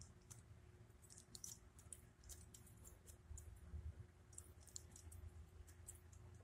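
Near silence with scattered faint, sharp small clicks, irregularly spaced, over a low steady hum.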